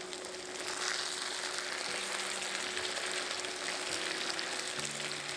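Bone-in chicken pieces sizzling as they fry in hot mustard oil in a pan, browning toward golden. A steady sizzle that swells during the first second and then holds.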